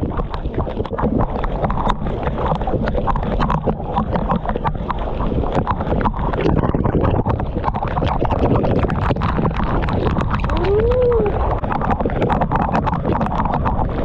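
Waterfall pouring onto and around the camera and splashing into the pool: a dense, steady rush of water with a constant crackle of drops striking close to the microphone.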